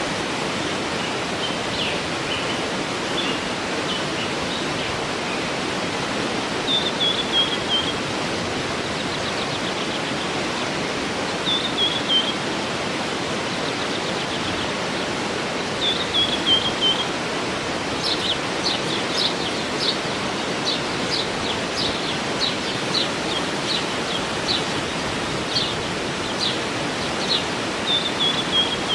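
Waterfall rushing steadily, with birds singing over it: a short descending phrase repeated several times, and a run of quick high chirps in the second half.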